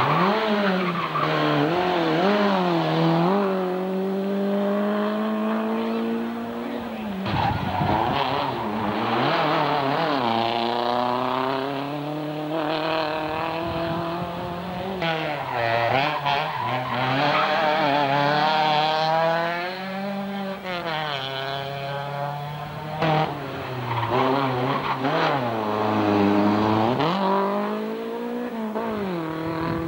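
Hillclimb rally car engines revving hard. Each engine note climbs steeply, drops sharply at gear changes and braking, and climbs again, over and over as the cars pass one after another.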